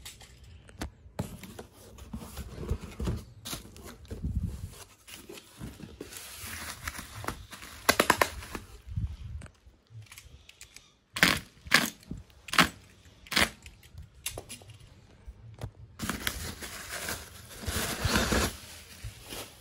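Cardboard box flaps and bubble wrap being handled: irregular rustling, crinkling and crackling of plastic packaging as a boxed unit is unwrapped by hand, with a quick run of sharp snaps about halfway through.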